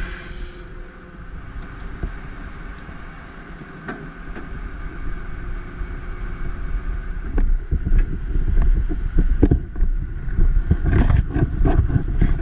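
Steady low rumble of a fire engine running, overlaid from about seven seconds in by irregular low thumps and buffeting on the body-worn camera's microphone as its wearer climbs down and walks; the thumps are loudest near the end.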